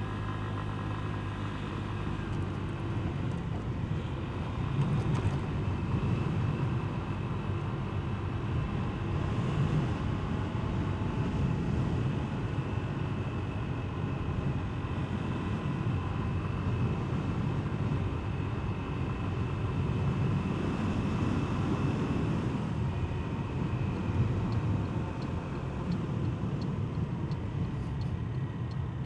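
Genuine Buddy 125 scooter's single-cylinder four-stroke engine running on the move, with wind and road noise over the microphone. A light, regular ticking comes in near the end.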